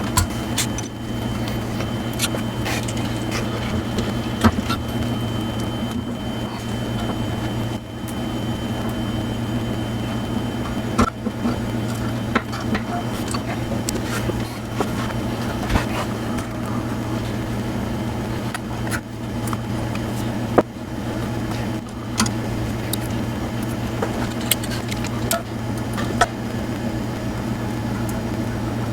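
Irregular light clicks and taps of small metal valve parts (washers, springs, retainers) being handled and fitted to a cylinder head, over a steady low hum.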